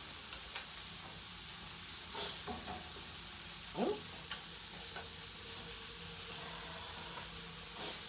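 Mixed vegetables sizzling in a skillet on a gas burner, a steady frying hiss. A few light clicks and scrapes come from a spoon and can as cream of chicken is scooped in.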